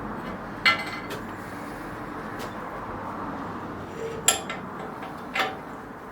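Three sharp metallic clinks, one about a second in and two close together near the end: a machined aluminium bandsaw throat plate knocking against the bandsaw table as it is set into its recess.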